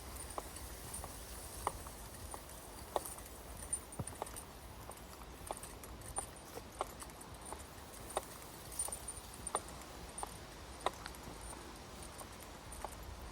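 Footsteps on a hard path during a dog walk: sharp, uneven clicks about once or twice a second over a steady low rumble.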